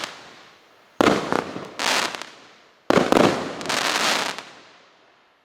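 Category 4 colour crackle display firework going off: two shots about two seconds apart. Each gives a sharp report followed less than a second later by a dense spray of crackling, then the sound fades away near the end.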